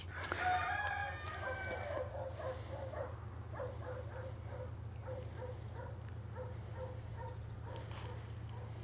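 A rooster crows once at the start. Then short clucking notes repeat about twice a second over a steady low hum.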